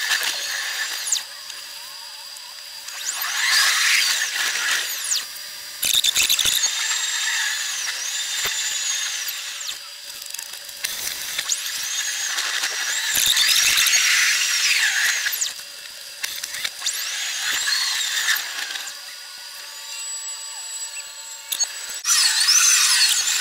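Tram wheels squealing against curved rails: high-pitched shrieks that waver and glide up and down in several bouts, with quieter rolling between them.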